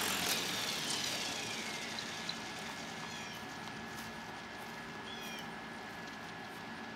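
Electric RC helicopter (Gaui Hurricane 550) winding down after landing: the motor and rotor whine falls in pitch and fades over the first few seconds. Short high bird chirps come about three and five seconds in.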